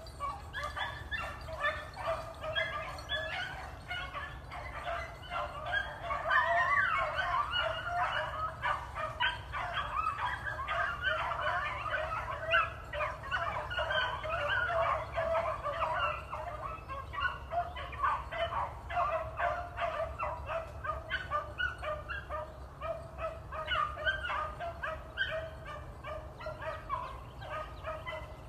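A pack of beagles in full cry, running a rabbit: many overlapping yelps and bawls going on without a break.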